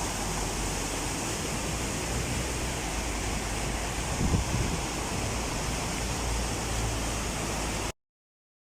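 Steady rushing noise of heavy water, from torrential rain and floodwater, with a brief louder knock about four seconds in; the sound cuts off suddenly near the end.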